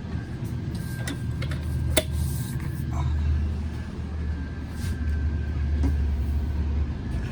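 A steady low machine hum inside a motorhome, with a few sharp clicks and knocks, the loudest about two seconds in, as the locking pins of the fold-down overhead bunk are pulled out. The hum drops away near the end.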